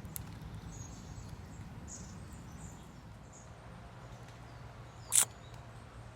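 Quiet outdoor ambience at the water's edge with a few faint, high, short chirps, and one sharp, brief sound about five seconds in.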